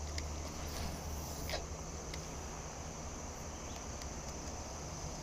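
Insects chirring steadily in one unbroken high-pitched drone, over a low steady hum, with a few faint clicks.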